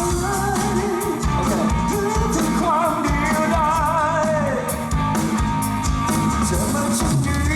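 Live rock band playing a song, with a wavering lead melody over steady drums and bass.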